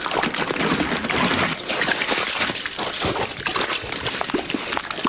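Wet, gushing liquid sound effect: a steady splashing, squishing noise dotted with many small wet pops.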